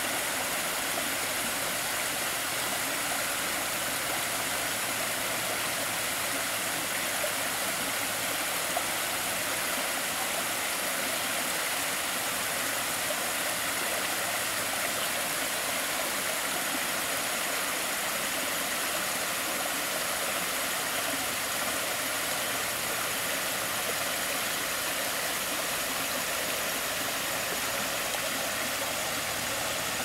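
Creek water running and splashing over small rock ledges in a steady rush.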